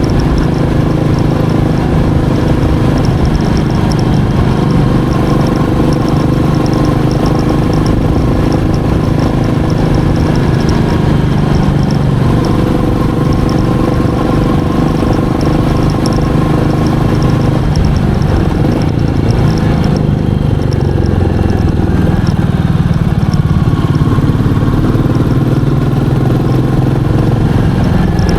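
Royal Enfield Meteor 350's single-cylinder engine and exhaust running steadily, the engine note dipping and rising a few times past the middle.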